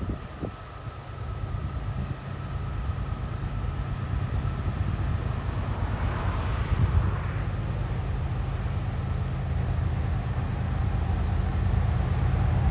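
Diesel locomotives of an approaching BNSF freight train, a low rumble growing steadily louder as the train nears.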